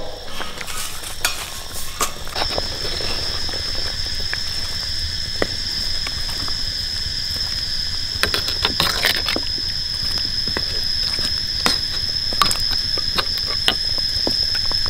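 Pork ribs braising in a wok: the liquid bubbles and sizzles steadily with scattered small pops, and a metal spatula clanks and scrapes against the wok around eight to nine seconds in. A steady high-pitched whine starts about two seconds in and carries on over it.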